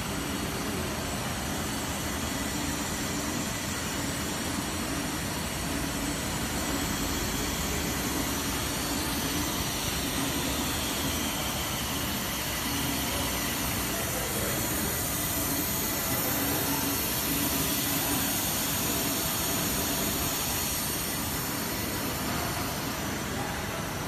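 Steady machinery noise of a running earphone and data cable extrusion line: an even hiss with a low hum.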